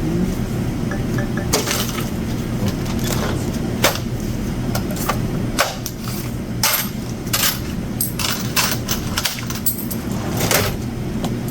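Checkout counter handling noises during a payment: scattered clicks, knocks and rustles, with three faint short beeps about a second in, over a steady low hum of store equipment.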